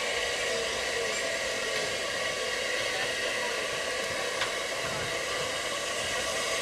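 Steam locomotive letting off a steady, even hiss of steam as it draws slowly up to a crossing.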